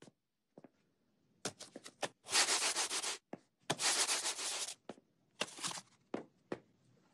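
A stick of butter rubbed against the soles of shoes: two long scraping rubs of about a second each, then a shorter one, with a few light taps and steps around them.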